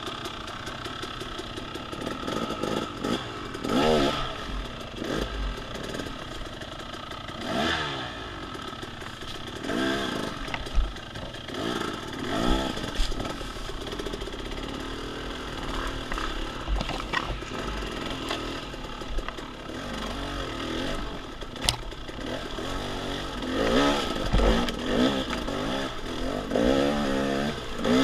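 Dirt bike engine running off-road, revving up and down in repeated bursts between steadier stretches, with a couple of sharp knocks.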